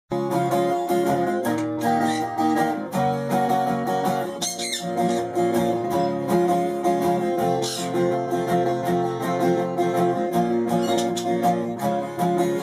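Background music on strummed acoustic guitar, with a steady run of chords.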